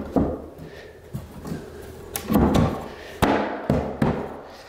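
Plywood patch dropped into the cut-out in the subfloor and pressed down by hand, wood knocking and scraping against the edges of the opening as it settles: several sharp knocks with rubbing between.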